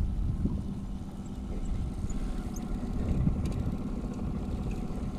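Low, steady rumble of a boat's motor running at trolling speed, with wind buffeting the microphone.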